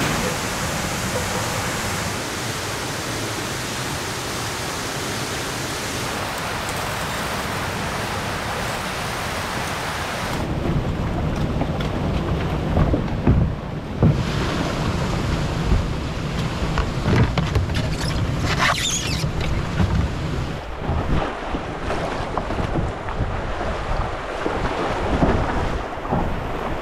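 A steady rushing hiss for about the first ten seconds, then river whitewater rushing with wind buffeting the microphone and a few sharp knocks.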